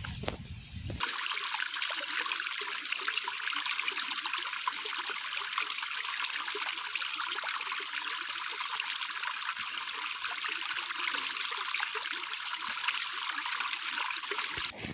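Stream water running and trickling steadily, a bright, hissy rush with no low rumble; it starts suddenly about a second in and cuts off suddenly near the end.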